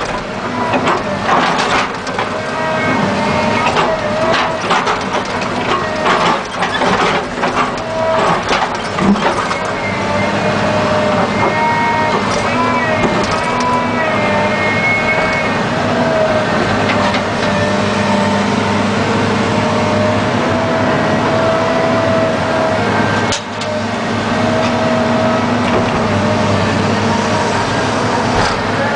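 John Deere 690 excavator's diesel engine and hydraulics working under load, heard from the cab. For roughly the first ten seconds the bucket crunches and scrapes through soil and rock. After that the engine runs steadily with a hydraulic whine that rises and falls in pitch as the boom and swing move.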